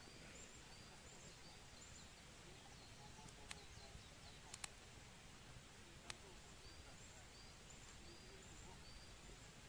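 Small wood fire in a BushBox LF stove, faintly crackling with a few sharp pops in the middle, against a quiet outdoor background. A bird calls in short, high repeated notes, about four at the start and four more near the end.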